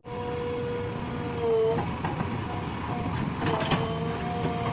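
JCB 3DX backhoe loader running, with a steady whine over the engine rumble that swells and rises briefly about a second and a half in, and a short clatter near the end.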